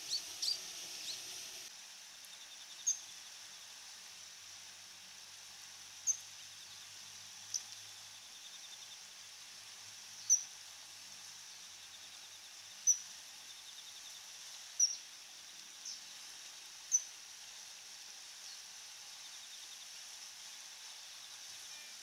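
Daurian redstart calling: short, sharp, high single notes repeated at irregular intervals every second or few seconds.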